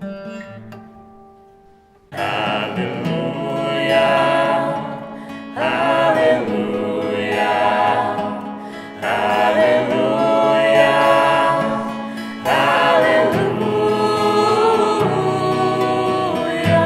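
Acoustic guitar music: a strummed chord dies away, then about two seconds in sustained wordless singing comes in over the guitar in four long phrases.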